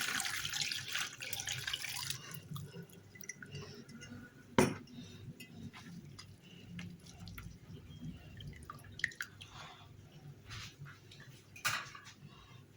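Liquid being poured through a strainer into a bowl: a steady pour for about the first two seconds that tapers off, then scattered drips with a few sharp clicks, the loudest about four and a half seconds in.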